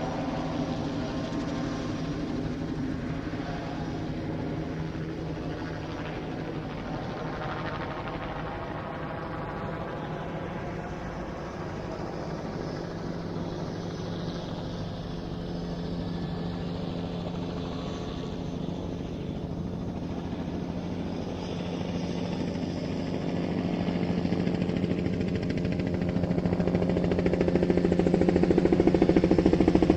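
Helicopter hovering and circling during a search, its rotor and turbine running steadily with a slow sweep in tone. It grows much louder over the last third as it comes closer.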